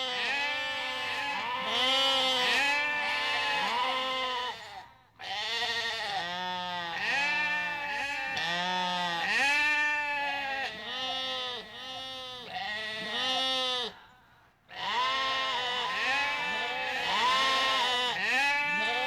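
Several goats bleating, their quavering calls overlapping one after another almost without pause, breaking off briefly twice, about five and fourteen seconds in.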